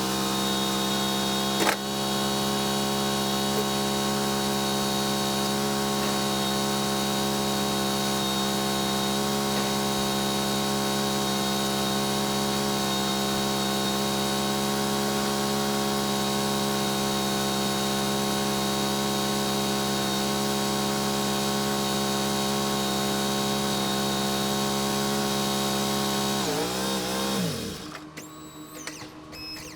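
Wood-Mizer LT35 portable band sawmill running steadily off-cut with a single sharp knock early on; near the end its engine winds down in pitch and shuts off.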